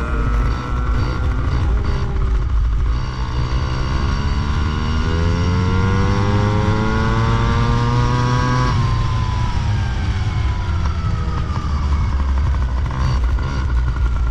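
Flat-track racing motorcycle engine heard from a camera mounted on the bike, its revs climbing steadily for several seconds and then falling away sharply about nine seconds in, over a heavy low rumble.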